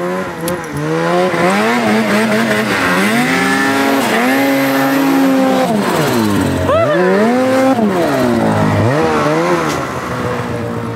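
Snowmobile engine revving hard in deep powder. Its pitch climbs and falls as the throttle is worked, dipping about three times, and it is loudest as the sled sprays past close by about six seconds in.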